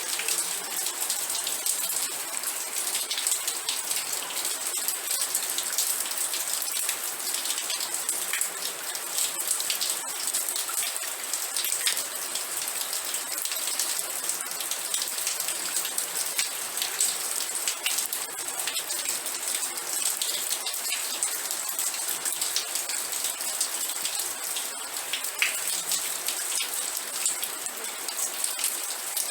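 Steady rain, with many drops pattering on a surface as fine ticks over an even hiss.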